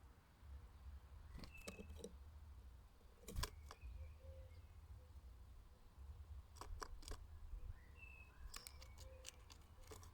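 Small garden birds at a feeder: a few short high chirps and scattered sharp taps and clicks, faint, over a steady low rumble.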